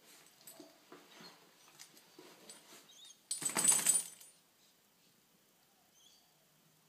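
A dachshund rubbing and rolling on carpet, with faint scratchy rustling. About three seconds in comes a brief loud shake of the head: ears flapping and the metal collar jingling, lasting under a second.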